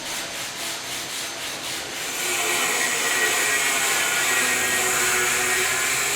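A tool scraping or abrading material on a building site. Repeated rubbing strokes for about two seconds give way to a steadier, louder hiss.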